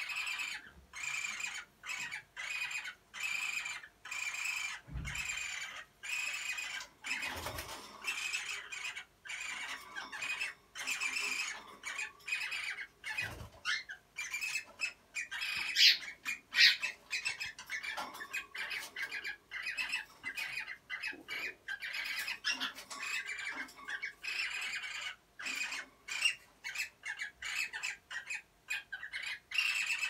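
Cockatiels squawking in short, rhythmic calls about twice a second, with two louder calls a little past the middle. The calls come while one cockatiel mounts another, the calling that goes with mating.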